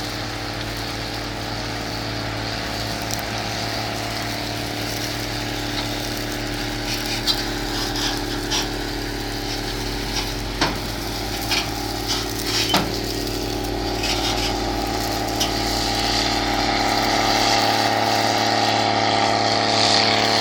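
Harvest machinery engine running steadily, with a handful of sharp knocks about a third to two-thirds of the way through and a slow rise in level toward the end.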